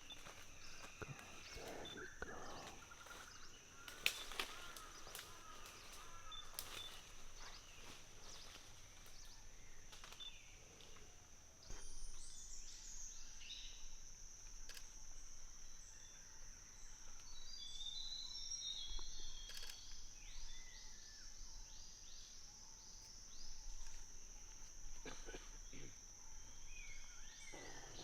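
Tropical forest ambience: a steady high insect drone, with crackles and snaps of moving branches in the first few seconds. From about the middle on there is a run of quick, high chirping calls.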